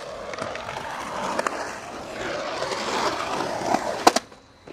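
Skateboard wheels rolling on concrete, growing louder, with a few sharp clacks and two loud clacks near the end before the sound cuts off abruptly.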